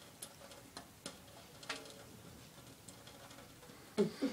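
A few light, sharp taps and drips in a kitchen sink as a cat paws at a thin trickle of water from the faucet, one tap ringing briefly. A short voice sound comes in near the end.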